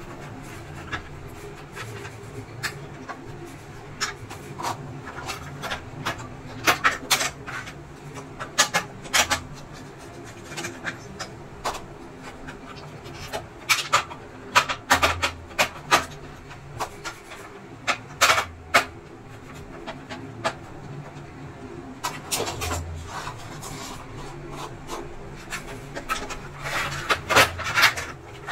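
Parts of a Prestige induction cooktop being handled during disassembly: irregular clicks, knocks and rattles of the plastic casing, the copper coil assembly and a screwdriver, in clusters, over a steady low hum.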